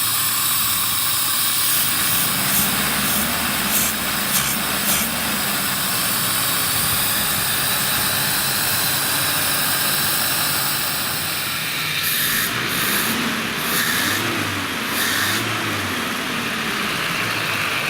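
GAZ Volga's four-cylinder petrol engine idling steadily on its freshly rebuilt K151 carburettor, with a strong hiss over the running and a few short clicks.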